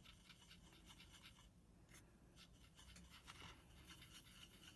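Faint, irregular scratchy strokes of a small paintbrush's bristles working watered-down pigment paste, mixing it and brushing it out.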